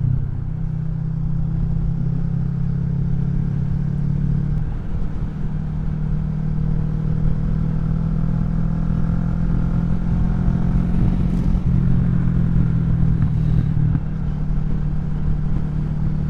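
Kawasaki Vulcan 650 S's 649 cc parallel-twin running through an aftermarket CS Racing exhaust at a steady engine speed, its note shifting slightly about four to five seconds in and again later. Wind rumble underneath.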